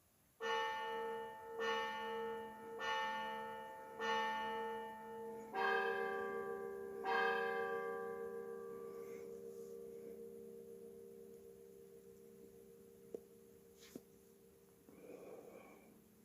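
A bell struck six times, about a second or so apart: the first four on one note, the last two on a different note with a lower tone added. It is then left ringing and slowly dies away, with two faint clicks near the end.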